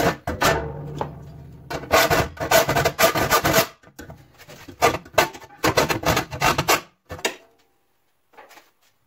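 Hacksaw sawing through a painted sheet-steel panel in uneven runs of back-and-forth strokes, the thin sheet ringing under the blade; the blade is worn. The sawing stops about seven and a half seconds in.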